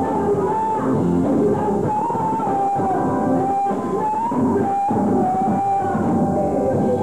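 Live blues-rock band playing, with electric bass and a drum kit under a lead melody that slides up and down between held notes.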